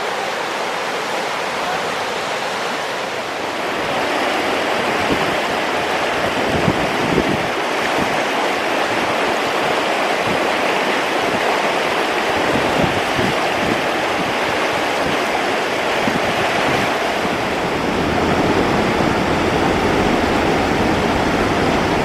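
Rushing water of the Rivière Langevin, a steady hiss that grows louder about four seconds in, with irregular low rumbles through the middle.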